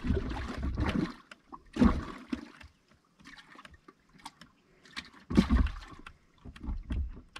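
Water sloshing and splashing in a bass boat's livewell in several irregular bursts as fish are handled in it, with a few light clicks in between.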